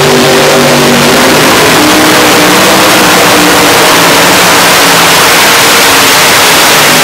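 Multi-engine modified pulling tractor with supercharged engines at full throttle, dragging the weight-transfer sled down the track. Very loud, a dense engine roar that holds steady throughout.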